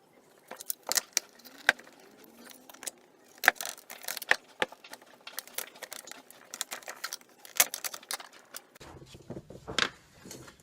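Irregular small clicks, taps and scrapes of metal and plastic: a blade prising apart a tumble dryer's aluminium door hinge while its little plastic bushes are taken out and new ones fitted.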